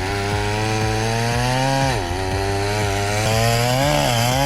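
Chainsaw running at high revs, a steady, loud whine. Its pitch dips briefly about two seconds in and again near the end.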